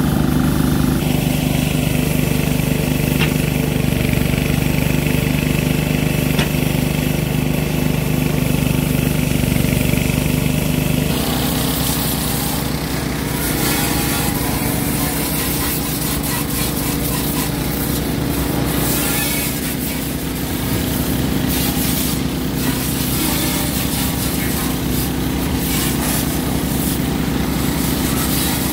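Small petrol-engine pressure washer running steadily, its water jet hissing against a cast-iron diesel engine block and cylinder head. The sound shifts abruptly about eleven seconds in.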